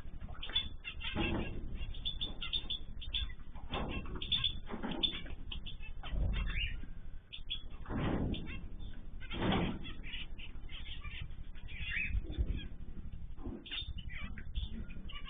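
Small cage birds chirping and twittering, with several louder rustles mixed in.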